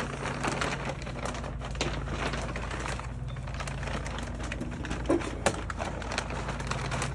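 Plastic tarp crinkling and rustling as it is dragged off a golf cart, with two sharper cracks about five seconds in.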